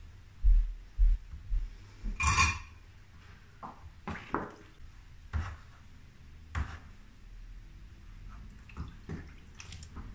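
Hands working a photographic print in a darkroom developing tray: scattered knocks and light clatter against the tray, with a louder swish of the liquid a little over two seconds in.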